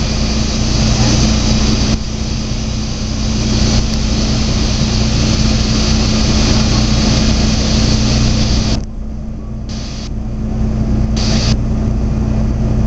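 Rollback flatbed tow truck's engine running, driving the hydraulics as the aluminium bed is tilted and slid down toward the ground. A loud steady hiss sits over the engine's hum, drops away about nine seconds in and comes back a second or two later.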